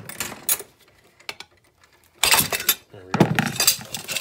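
Aluminum tubing and bar-stock offcuts clanking and scraping against each other as they are pulled apart and set down: a few light clinks at first, then a louder run of clanks from about two seconds in.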